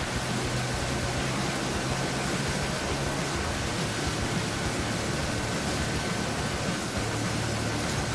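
Sawmill machinery running steadily: a constant low hum under an even rush of noise, with a faint thin whine held throughout.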